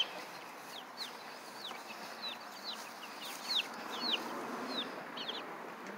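Baby chicks peeping: a running string of short, high, downward-sliding peeps, two or three a second.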